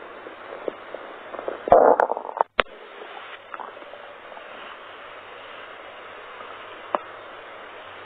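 Human stomach growling: a loud, irregular rumble about two seconds in, then a sharp click, after which only a faint steady hiss remains, broken by one more click near the end.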